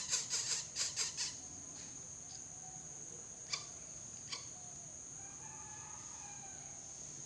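A greater coucal chick gives a rapid series of harsh rasping calls, about five a second, which stop just over a second in. After that a steady high insect drone carries on, with two faint clicks.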